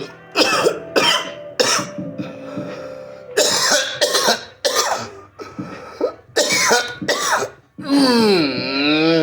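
A fit of harsh coughing from a person who has taken a hit of smoke from a bowl: about ten hacking coughs in clusters over some seven seconds. Near the end, background music with a held, wavering sung note comes up.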